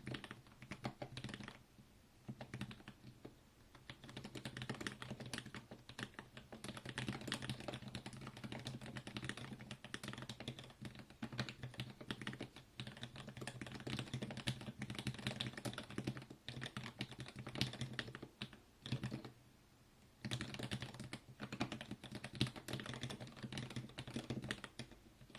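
Typing on a mechanical keyboard with lubed Milky Gateron Yellow linear switches and lubed Everglide stabilizers in a 5 mm integrated plate. It is a fast, continuous run of keystrokes with a few short pauses, the longest about two-thirds of the way through.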